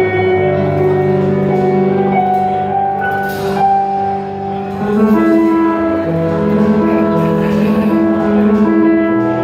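Live band music: horns and keyboard playing long held notes over a bass line, with the chord changing about halfway through.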